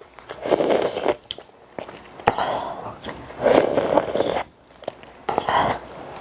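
A person eating close to the microphone: chewing and mouth noises in four bursts, about half a second to a second each, with small clicks between them.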